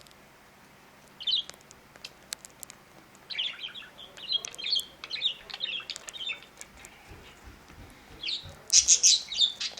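Pet budgerigars chirping and chattering in short bursts, with a few sharp clicks in between. The loudest run of chirps comes near the end.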